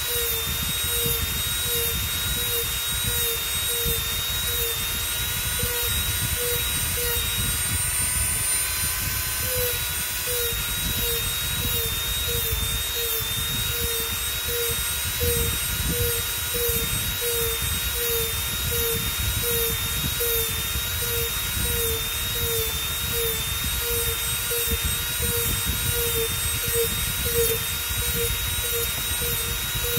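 Handheld rotary tool running at high speed while its small bit carves foam: a steady high whine over a low rumble, with a faint pulse about twice a second. The pitch rises briefly about nine seconds in.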